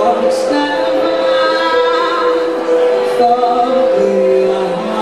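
A woman sings live with vibrato on held notes, accompanied by sustained chords on a Roland RD-700SX stage keyboard.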